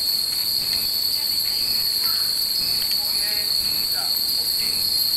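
Cicadas buzzing in the trees, a steady high-pitched drone that does not let up, with faint voices of people in the background.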